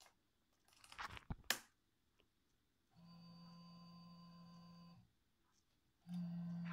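A few sharp handling clicks and rustles. Then the car stereo bench rig gives a steady electronic buzz, a low hum with thin high tones over it. It lasts about two seconds, stops, and comes back louder near the end.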